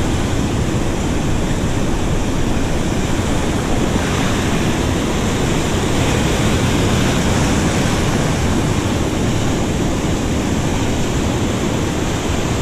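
Ocean surf breaking and washing over rocks: a steady, loud rush of foaming water.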